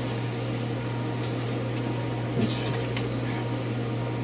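Room tone: a steady low hum with a few faint scattered clicks and rustles.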